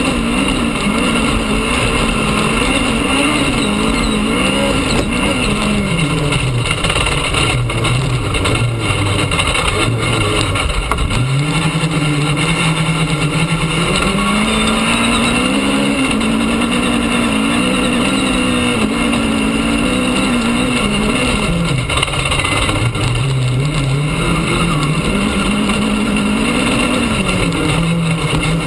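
Off-road rally car at speed on a dirt stage, heard from inside the cabin: the engine's revs fall away twice and climb again, over loud, constant tyre, gravel and cabin noise with occasional knocks from bumps.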